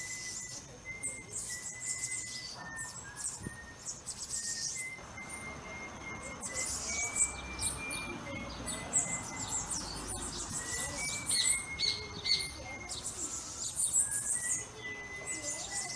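Birds chirping and twittering in many short, high calls, over a thin steady high tone that moves in small steps of pitch.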